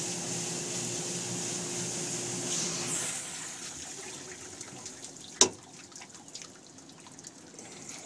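Hobart commercial dishwasher running its wash cycle: water spraying and splashing inside the machine, with a steady hum that stops about three seconds in. A single sharp click about five seconds in.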